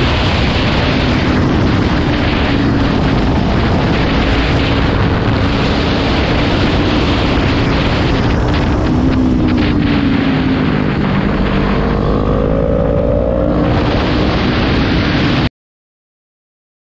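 Heavy wind noise buffeting the microphone over a Kawasaki Ninja sportbike's engine running at speed. Near the end the engine pitch rises as it accelerates, then the sound cuts off suddenly.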